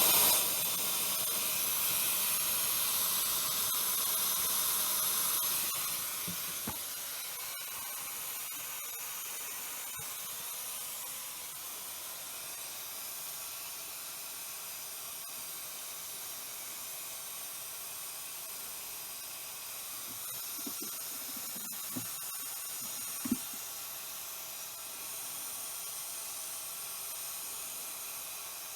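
Compressed air hissing out in a steady stream, starting suddenly. It is louder for the first several seconds, then settles to a slightly quieter, even hiss, with a few faint knocks about two-thirds of the way in.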